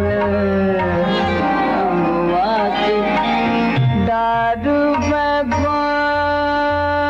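Hindustani classical music, a thumri in Raag Des: a held melodic line that bends and glides in pitch over a steady tabla rhythm.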